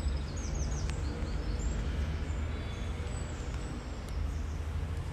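Outdoor background noise: a steady low rumble, with a few faint bird chirps in the first second.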